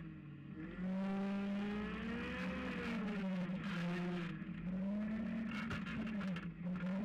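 Rock buggy engine running and revving up and down as it crawls over rocks, with scattered knocks and clatter from the tyres and chassis on rock. The engine note drops briefly at the start and picks up again about a second in.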